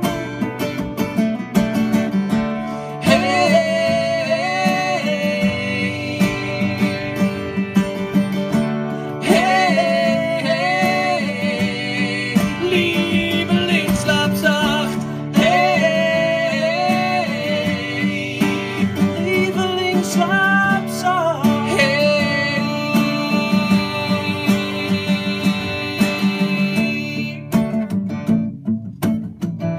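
Live acoustic music in a break between verses: acoustic guitar accompaniment with a wordless melody line carried over it, which thins out near the end.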